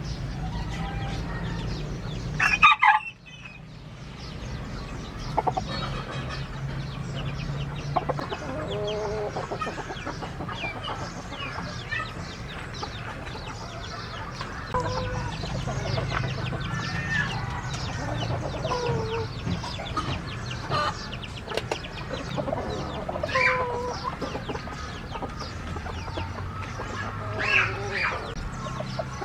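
Chickens clucking and calling, many short calls one after another, with one loud call about three seconds in, over a steady low hum.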